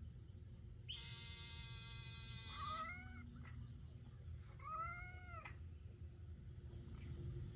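A long, steady, even-pitched drawn-out call of about two seconds, then two rising-and-falling cat meows, the second near the middle.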